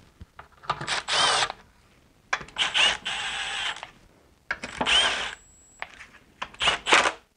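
Small cordless drill-driver running throttle-body bolts on a BMW M62TU intake manifold in four short runs, each up to about a second and a half long, with short pauses between them.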